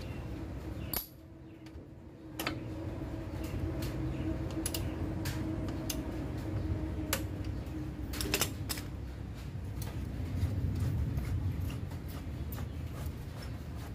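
Irregular metal clicks and clinks of a hand tool working the bolts of a Yamaha Aerox scooter's rear disc brake caliper, over a steady low background hum.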